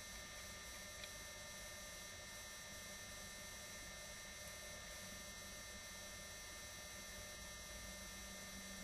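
Faint steady electrical hum with hiss, and a tiny tick about a second in.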